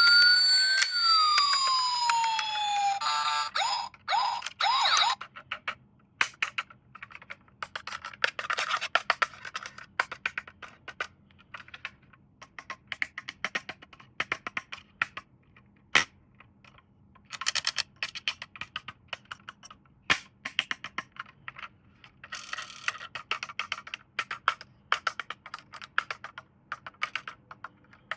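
Electronic siren sound from a toy police car, gliding up and down in pitch, stopping about three seconds in. It is followed by scattered clicks, taps and rustling as the toy and its packaging are handled.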